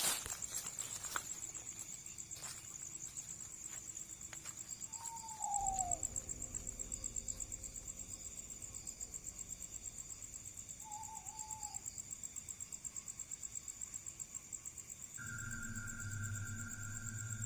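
Night insects, crickets, trilling steadily in a high, pulsing drone. A short falling whistle comes about five seconds in and a brief warbling whistle around eleven seconds. Near the end a steady tone with a low hum joins.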